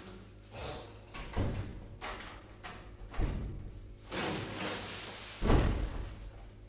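A few irregular dull thumps and knocks with rustling noise, no voice; a longer rustle about four seconds in ends with the loudest thump.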